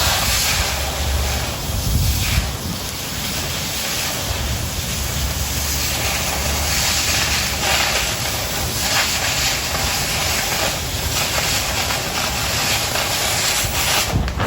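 Oxy-fuel cutting torch hissing steadily as it cuts through quarter-inch steel plate, with a few brief louder crackles.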